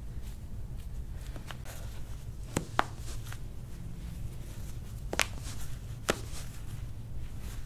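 Hands handling a bare foot and a paper tissue, with several short sharp clicks, the loudest about two and a half and five seconds in.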